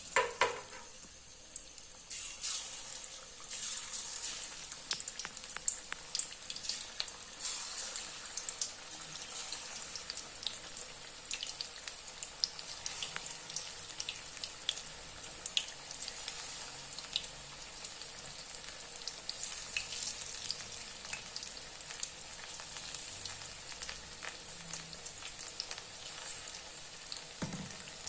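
Green-onion pakoras in gram-flour batter deep-frying in hot oil: a steady sizzle with constant small crackles and pops. It gets fuller after about two seconds as more pieces go into the oil.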